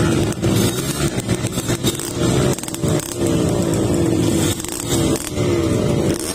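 Trail motorcycle engine running under load, its pitch climbing and dropping several times, with short clattering knocks throughout.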